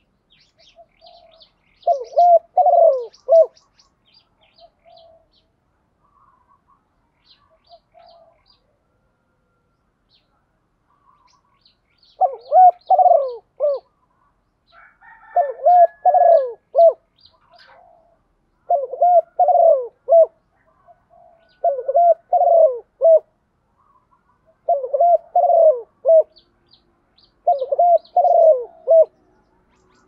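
Spotted dove cooing: seven phrases of a few notes each, one early and then six more evenly spaced after a long pause of about nine seconds. Faint high chirps of small birds sound between the phrases.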